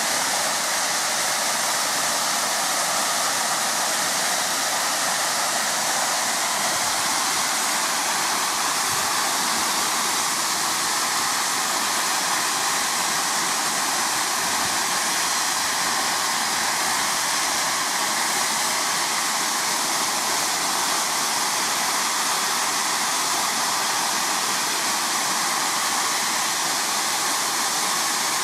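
Safety valves of steam locomotive No. 1638, a GWR 1600 class pannier tank, blowing off: a steady, unbroken roar of escaping steam. The boiler has reached full working pressure.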